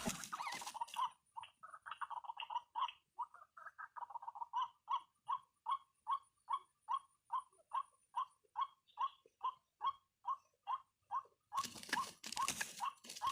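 White-breasted waterhen calling: a run of irregular croaking notes, then a long steady series of short 'kwak' calls at about three a second.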